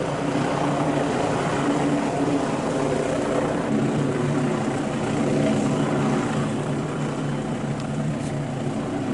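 A steady mechanical drone with a faint low hum, beginning and ending abruptly.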